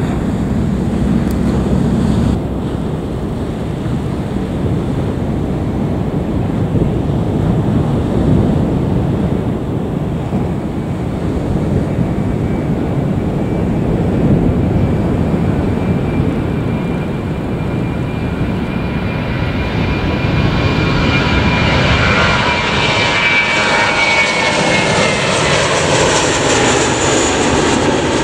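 JetBlue Airbus A321-231's IAE V2500 turbofan engines at takeoff thrust: a steady jet roar that grows louder and gains a high whine about two-thirds of the way through as the airliner lifts off and climbs past, the whine falling in pitch.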